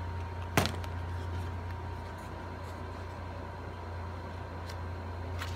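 Steady low background hum with a faint high-pitched tone, and one sharp click about half a second in, with a fainter tick near the end.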